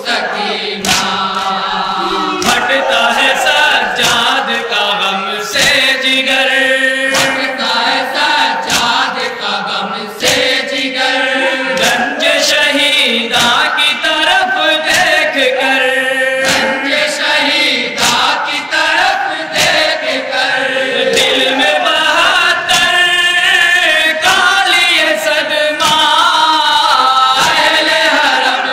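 Group of men chanting a Shia noha, a mourning lament, in held, wavering unison lines, over a steady rhythm of sharp slaps from hands beating on chests (matam).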